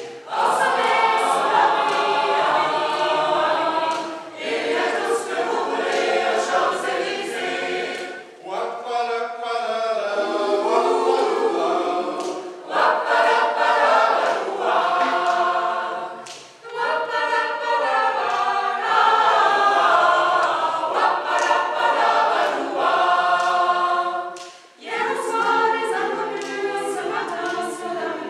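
Mixed choir of men's and women's voices singing a cappella, in phrases with brief pauses between them.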